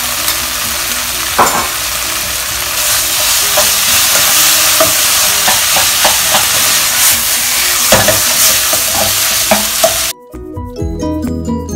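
Minced pork frying and sizzling in hot oil in a non-stick wok, stirred with a plastic spatula that clicks and scrapes against the pan. About ten seconds in the sizzle cuts off suddenly and music takes over.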